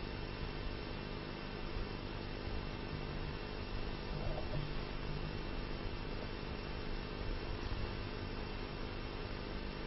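Steady electrical hum with a hiss over it from the lecture's microphone and sound system, with no speech.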